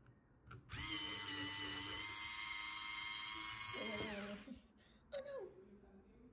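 Small high-speed electric motor whirring steadily for about three seconds, then winding down, with a brief second whir that winds down again about a second later.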